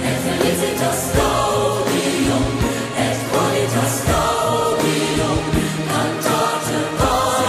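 Choral music: a choir singing, with no speech over it.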